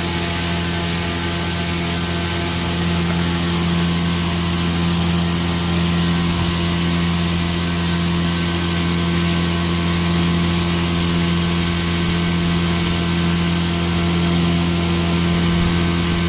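A steady mechanical drone: a low hum with a strong steady tone, fainter higher tones and a hiss over it, running unchanged.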